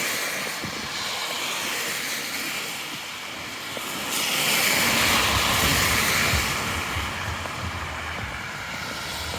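Street traffic: a passing vehicle's noise swells about four seconds in and fades after about six and a half seconds, over a steady background hum of the street.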